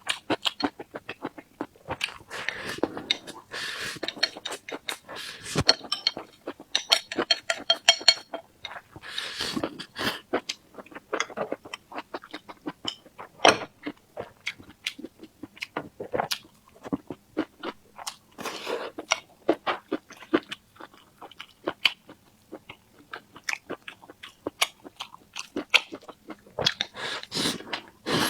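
Close-miked eating sounds: steady chewing with crunching bites and wet, clicking mouth noises, irregular throughout.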